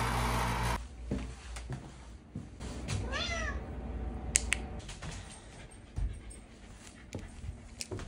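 A tabby cat meows once, about three seconds in: a single short call that rises and then falls in pitch.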